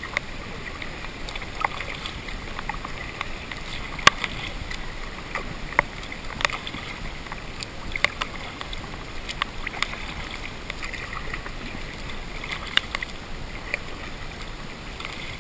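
Scattered hailstones ticking sharply on a GoPro's waterproof housing, one every second or two, over the muffled steady hiss of a canoe being paddled on the river.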